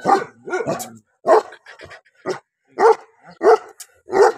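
Pakistani bully kutta barking repeatedly, about seven loud barks in a steady string.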